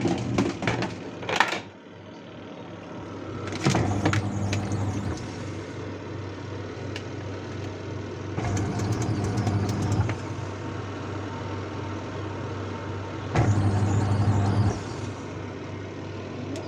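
Voltas Beko semi-automatic washing machine's wash motor humming as it drives the pulsator in short runs about every five seconds. There are a few clicks near the start. The wash side's noise comes from cloth and dirt jammed in the pulsator.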